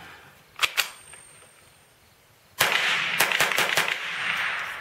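Two sharp clicks under a second in, then a Ruger SR-22 .22 LR semi-automatic rifle fires about five quick echoing shots and stops, a feeding failure from the HC3R 45-round magazine.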